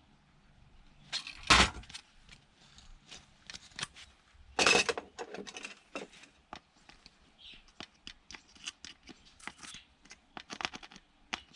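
Plastic and metal parts of a DVD player's disc mechanism being handled and forced apart by hand: scattered clicks and rattles, with two louder cracks about a second and a half and four and a half seconds in.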